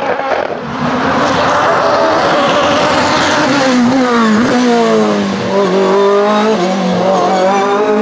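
Osella FA30 sports-prototype race car at full throttle, its engine screaming at high revs as it approaches and passes close by. The pitch drops as it goes past, about four seconds in, and it keeps running hard up the hill as it pulls away.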